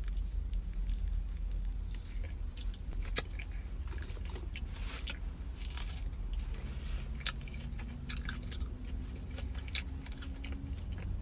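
Close-miked chewing and biting into a fried McDonald's apple pie: crisp crackles from the flaky crust and wet mouth clicks, over a steady low hum.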